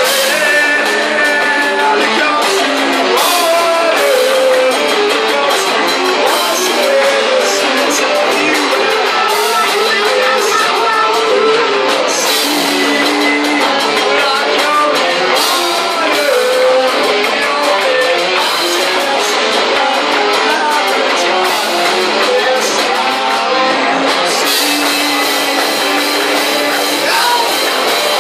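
Rock band playing live: electric guitars, bass and drums with a singer, loud and continuous, thin in the low end.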